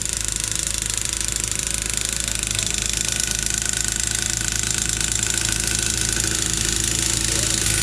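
An engine running steadily at a constant speed, with a low hum under an even mechanical clatter.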